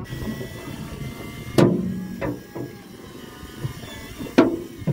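Two sharp knocks a little under three seconds apart, each with a short low ring after it, and a couple of lighter taps just after the first.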